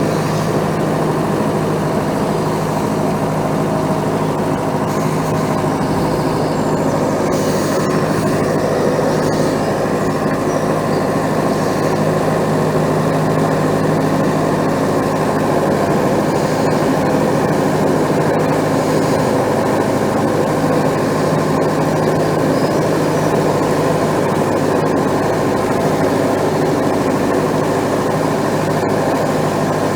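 Engine of a 100-year-old work barge running steadily at an even, low hum while under way.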